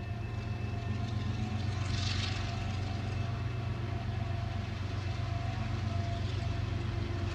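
An engine running steadily, a low, even hum with faint steady tones above it.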